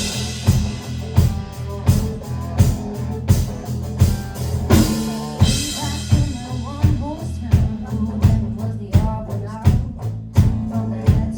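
Live band playing a song with a steady drum beat over sustained low notes, with cymbal crashes at the start and about five seconds in.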